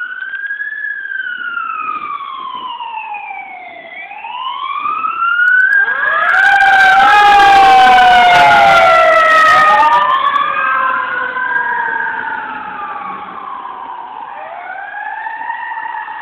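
Fire truck siren wailing, its pitch sweeping slowly up and down, as the truck races past. It grows loudest, with a rush of noise, about six to ten seconds in as the truck goes by close, then fades.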